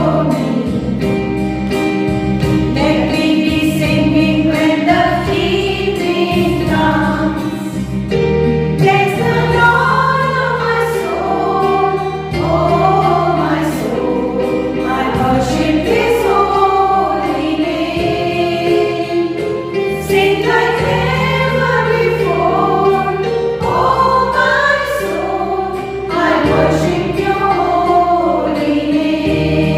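A choir singing a song over steady held accompaniment notes.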